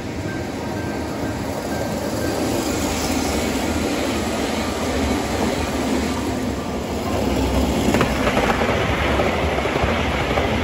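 Gauge 1 model train running past on the track, its wheels rolling over the rails in a steady rumbling clatter. The sound gets louder about eight seconds in.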